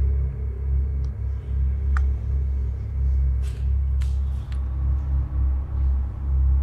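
Deep low rumble that swells and dips unevenly in level, with a few faint ticks over it.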